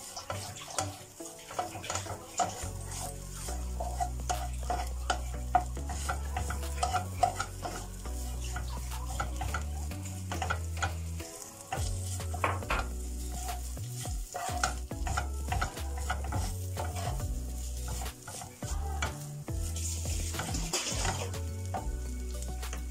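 Wooden spatula stirring and scraping shredded chicken frying in butter in a nonstick frying pan, with light sizzling and frequent clicks of the spatula against the pan. A low hum runs underneath from about two seconds in.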